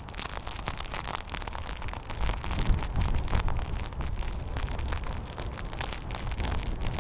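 Hurricane wind gusting hard across the microphone, a deep buffeting rumble with many sharp crackles of wind-driven rain striking it. The gusts grow a little stronger about two seconds in.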